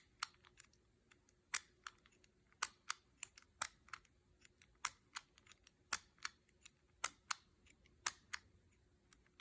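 Number wheels of a Master Lock 875 four-digit combination padlock clicking as they are turned one number at a time through their detents. The clicks are sharp, irregular and a few a second, made while the dials are stepped through the numbers to find the missing digit.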